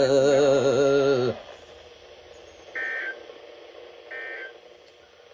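The alert's voice message ends on the word "north", then two short buzzy two-tone data bursts of the Emergency Alert System sound about 1.4 s apart: the end-of-message code that closes the alert.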